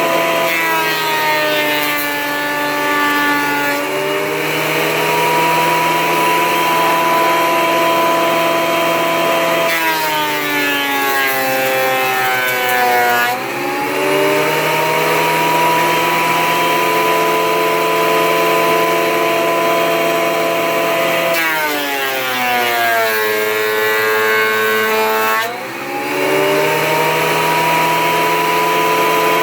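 Porter-Cable portable planer's motor running with a steady high whine. Three times its pitch sinks slowly as a board feeds through and loads the cutterhead, then snaps back up as the board clears.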